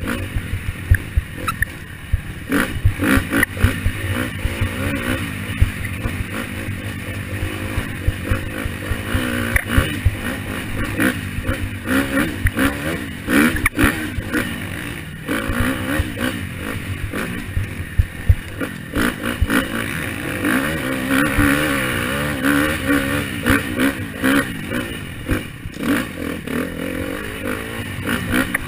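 KTM 250 trail bike engine revving up and down as it is ridden along a bumpy forest trail, with frequent rattles and knocks from the bike over the bumps.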